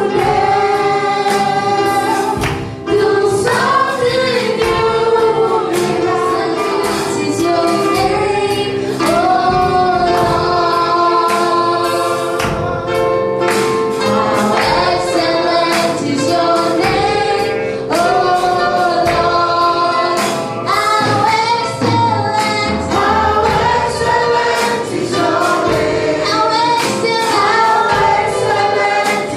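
Gospel praise and worship music: a group of voices singing together over a band with a steady beat.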